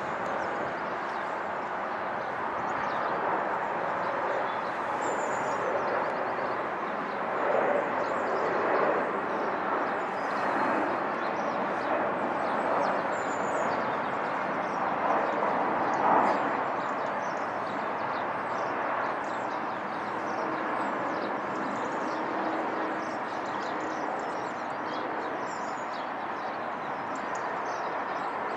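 Jet engines of a Boeing 767-330ER airliner on approach with its gear down, a steady rushing drone that swells a little in the middle as it passes over.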